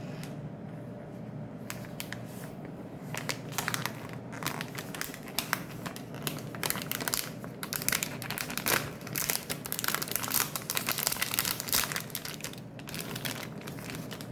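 Plastic packaging crinkling and crackling as it is handled, in an irregular run of rustles that thickens in the second half.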